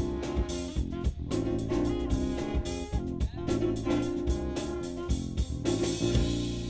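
Live band playing an upbeat funk number through PA speakers: a drum kit keeps a steady beat under guitar and other instruments.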